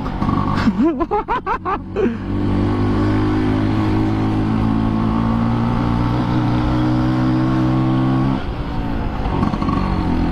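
Two-stroke Vespa engine running at a steady pitch, then dropping off about eight seconds in, which the rider puts down to fuel coming through late.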